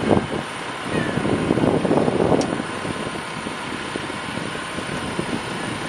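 Tractor-drawn slurry tanker with a trailing-shoe spreading boom passing close by: a steady rush of engine and running-gear noise, a little louder about two seconds in.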